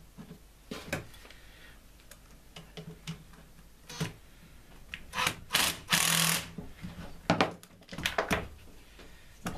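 Cordless power driver running in short bursts to drive home a screw that holds the mower's drive-belt tension, the longest burst about six seconds in. Around it, clicks and knocks of tools and the plastic housing being handled.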